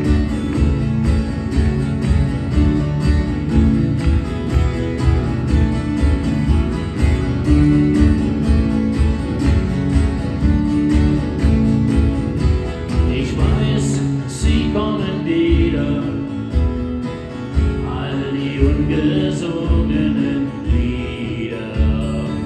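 Two acoustic guitars strummed together in a steady rhythm, played live and amplified. A voice sings over them from about halfway through.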